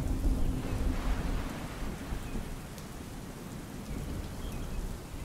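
Low rolling thunder, loudest in the first second or two and then easing, over a steady hiss of rain.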